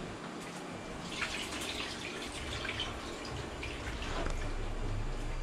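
Water splashing and sloshing in a plastic basin as clothes are washed by hand, in uneven bursts with small drips. A low steady hum comes in about halfway.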